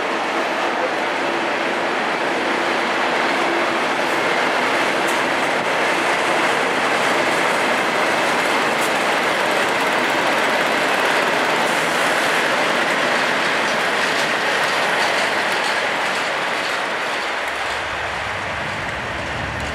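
Direct Rail Services Class 37 diesel locomotives, with English Electric engines, running past at close range with a train of flask wagons. The engine and rolling noise is steady, with a held engine tone through the first half. It grows a little louder as the locomotive draws level and eases off near the end.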